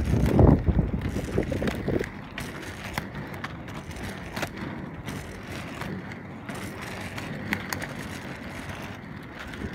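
Skate wheels rolling on pavement: a loud low rumble for about the first two seconds, then a quieter steady rolling noise with scattered sharp clicks.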